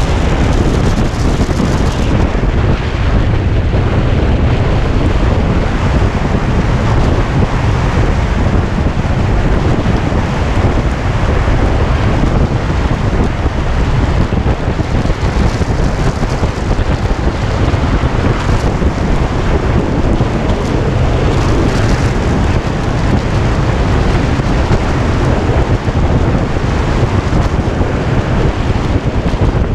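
Loud, steady wind buffeting the microphone of a camera on a Kawasaki Ninja 250 motorcycle riding at road speed, a deep rumbling rush with no clear engine note standing out.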